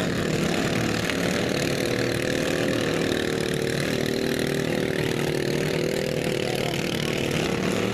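Lawn mower engines running in a lawn mower derby, steady in loudness, with the engine pitch bending slightly up and down.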